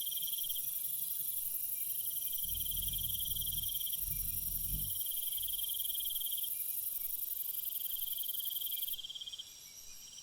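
Night insect chorus: a high, steady shrill trill that cuts off suddenly about nine seconds in, over repeating trains of pulsed chirps every couple of seconds. A faint low rumble comes and goes a few seconds in.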